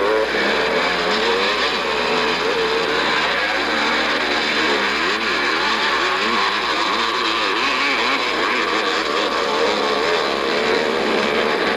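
Several motocross motorcycle engines revving up and down, overlapping, as the bikes are worked through deep mud, under heavy hiss from the old film soundtrack.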